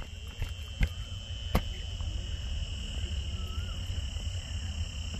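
Insects droning steadily at a high pitch, with two sharp clicks about one and one and a half seconds in.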